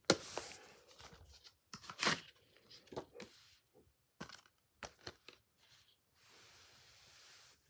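A cardboard slipcover being slid off a plastic Blu-ray case, with the case and sleeve handled and set down on carpet: a run of sharp scrapes and clicks, then a steady rubbing for about a second near the end.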